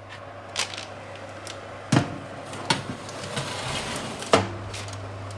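Kitchen clatter of a metal baking tray going into an oven and the oven door being handled: a few sharp knocks, the loudest about two seconds in and another near the end.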